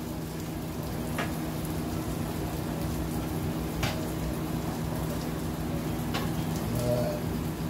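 Butter sizzling and bubbling on a hot flat griddle, a steady crackle with a low hum underneath and a few sharp ticks.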